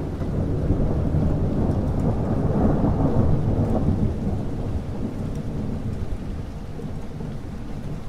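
Thunder rolling during a rainstorm: a deep rumble that swells to its loudest about two to four seconds in and then slowly dies away, with rain falling steadily.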